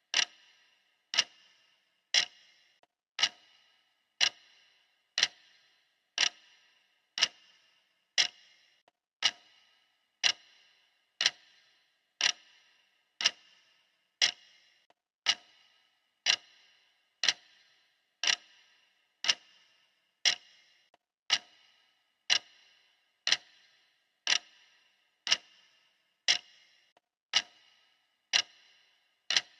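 Clock ticking steadily, one sharp tick a second, each tick with a short ring.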